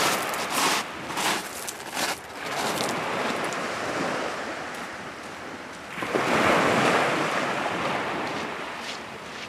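Waves breaking and washing over a shingle beach, with a swell of surf about six seconds in that slowly dies away. A few sharp clicks in the first two seconds.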